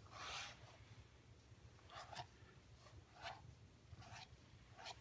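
Faint swishes of a grooming brush stroking through a cat's fur, about half a dozen strokes, the first one the longest.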